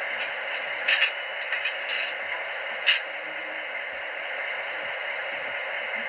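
Digital sound decoder of a Dekas model NOHAB GM diesel locomotive playing its diesel engine sound steadily through the model's small onboard speaker while the locomotive stands still. A few short sharp sound effects come between about one and three seconds in, the loudest near three seconds.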